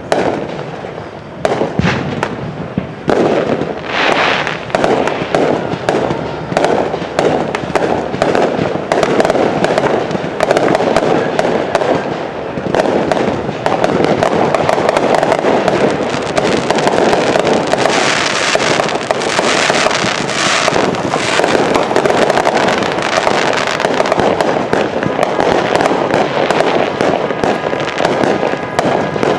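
Fireworks finale barrage: rapid, overlapping shots and crackle, growing into a nearly unbroken volley from about halfway through.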